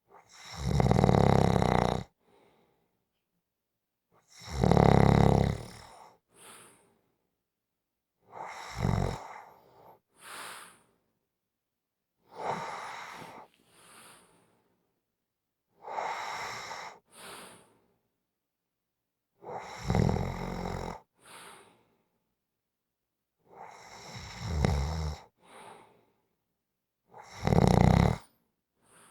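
A person snoring: eight loud snores about every four seconds, each followed a second later by a shorter, softer breath out, with quiet pauses between.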